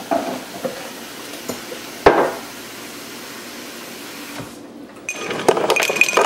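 Lemonade in a plastic pitcher sloshing under a running tap as it is stirred with a wooden spoon, with one sharp knock about two seconds in. From about five seconds in, ice cubes clink and ring against a glass.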